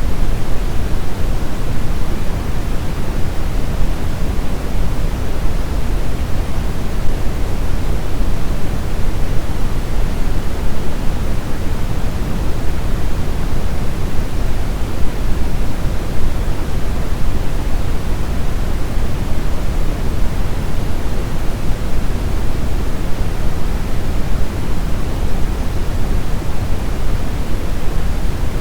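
Steady brown noise: an even, unbroken hiss weighted heavily toward the low end, like a deep rumble, with no changes or events.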